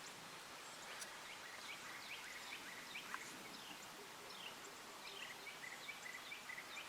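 Small birds chirping over a faint steady hiss: many short, quick notes that drop in pitch, scattered irregularly throughout.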